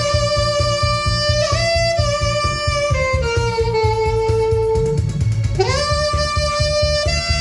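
Saxophone playing a slow melody of long held notes, scooping up into a note about five and a half seconds in, over a backing track with a steady low beat.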